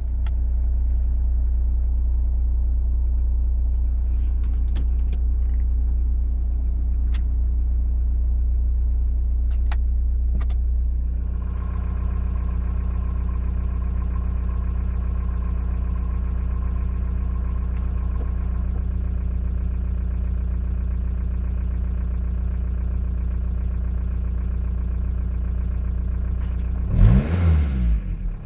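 Volkswagen 1.9 TDI 90 hp four-cylinder turbo-diesel idling steadily with its persistent ticking, which new lifters and injectors have not cured and which the owner suspects is play in a wrist pin. Near the end the engine is blipped once, rising and falling in pitch.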